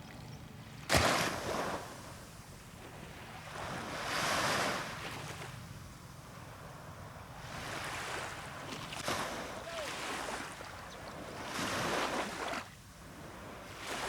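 Sea waves washing and splashing, with wind: a sudden loud splash about a second in, then several slower swells of surf rising and falling.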